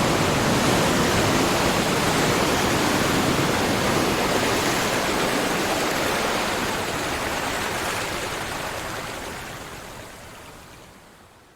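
Steady rushing water, fading out over the last few seconds.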